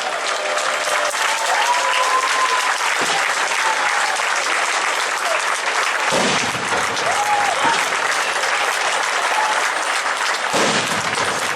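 Large crowd applauding steadily, with whistles and shouts over the clapping and a few deep thumps about three, six and ten and a half seconds in.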